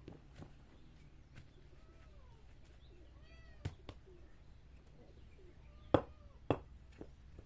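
A cat meowing in short, rising-and-falling calls, a few of them in the middle, with sharp knocks or taps about halfway through and twice more near the end.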